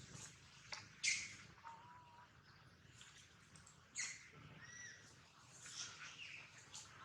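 A baby monkey's short, high-pitched squeals, a few scattered calls, the loudest about a second in and another about four seconds in.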